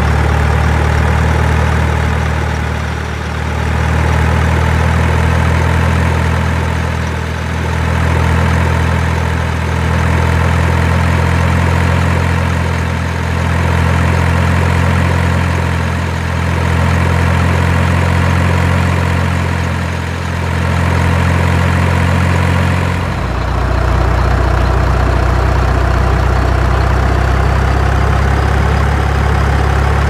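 Heavy engine idling steadily, its low hum dipping briefly every few seconds; a deeper rumble joins about two-thirds of the way through.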